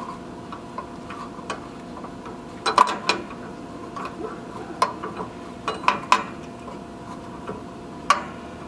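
Short metal-on-metal clinks of a shorty 11/16-inch wrench working the radiator drain valve nut on a liquid-cooled standby generator to break it loose. There are a few sharp clicks, some in quick pairs, spaced a second or two apart, over a faint steady hum.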